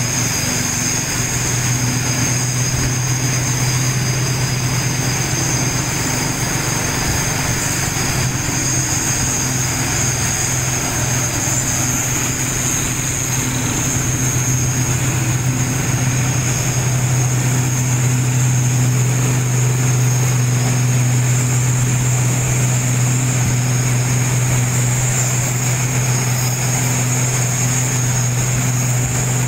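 Vehicle engine running steadily with a low drone and a faint high whine above it, growing slightly louder about halfway through.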